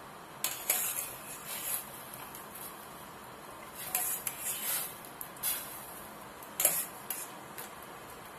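Metal knife scraping sliced white mushrooms off a ceramic plate into a pan of blanching water, in a series of short scrapes over a steady hiss.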